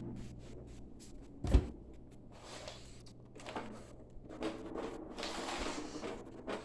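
Handling noises: one sharp knock about a second and a half in, then rustling and scraping, over a steady low hum.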